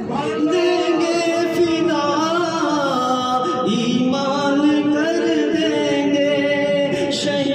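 Male voice singing a devotional Urdu kalam, holding long notes that bend and waver in an ornamented melody.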